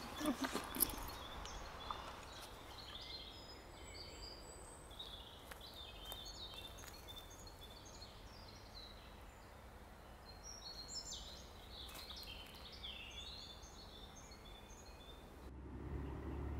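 Forest birdsong: many small birds chirping and trilling over a soft outdoor hush, with a few knocks and rustles in the first second. Near the end the birdsong cuts off and a low steady street rumble takes over.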